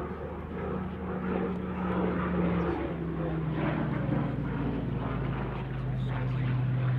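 Hawker Hurricane's Rolls-Royce Merlin V12 engine and propeller running at display power as the fighter flies aerobatics overhead. The engine note drops in pitch twice, about three and four seconds in.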